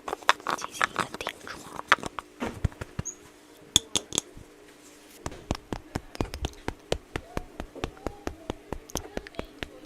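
Light, close-miked tapping and clicking of a makeup applicator: scattered taps at first, then steady patting about three times a second from about five seconds in.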